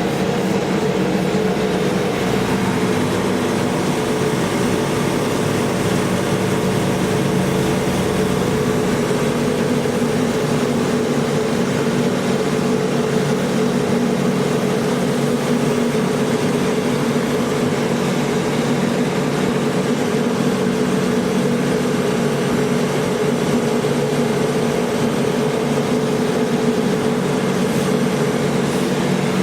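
Turbine vacuum cleaner running steadily: an even rushing air noise with a constant hum, without change in speed.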